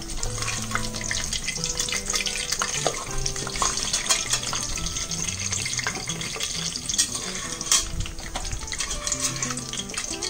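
Egg rolls frying in hot oil in an aluminium pressure cooker, a steady crackling sizzle as they finish cooking to golden brown.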